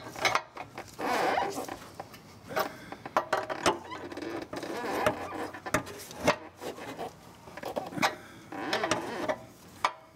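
An open-end wrench is turning a new oxygen sensor tight in the exhaust pipe. Irregular metallic clicks and clinks come as the wrench is set back on the sensor's hex between short turns, with a few brief scraping stretches.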